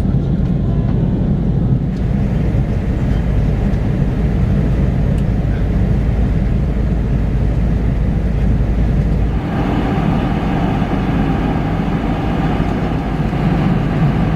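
Airbus A330-200 cabin noise: a steady deep rumble of engines and airflow heard from inside the passenger cabin. About nine and a half seconds in, the deepest rumble drops away and a higher hiss comes up.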